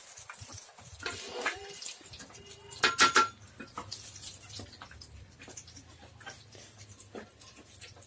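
Hands squishing quail eggs around in a bowl of wet batter, with small wet clicks and ticks. About three seconds in there is a brief loud call-like burst, the loudest sound here.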